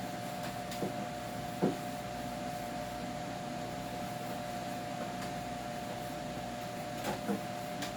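A steady mechanical hum with a constant tone, with a few light knocks and taps of things being handled: a sharper one about one and a half seconds in and a couple near the end.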